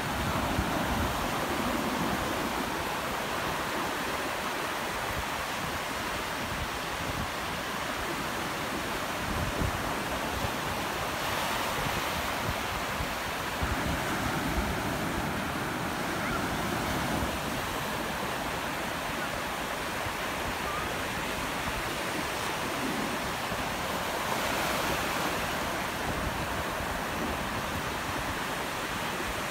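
Ocean surf: waves breaking and washing in over the shallows in a steady rush that swells and eases every few seconds, with wind buffeting the microphone in low rumbles.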